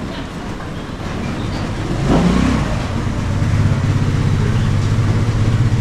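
Street traffic: a motor vehicle's engine running close by, its low hum growing louder in the second half, with a brief louder rush of noise about two seconds in.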